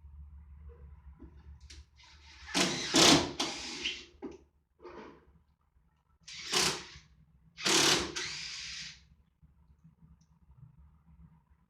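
Installation work noise on the air conditioner's wall mounting plate: several short mechanical rattling bursts, the longest about a second and a half, over a faint low hum.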